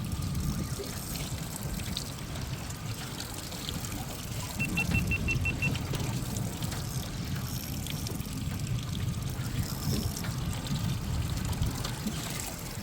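Water trickling and lapping against a drifting boat's hull over a steady low rumble. About five seconds in there is a quick run of about seven short, high beeps.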